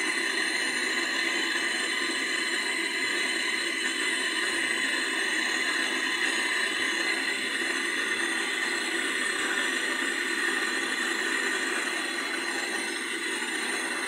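Gas brazing torch burning with a steady hiss, its flame heating a refrigerator compressor's pipe joint for brazing.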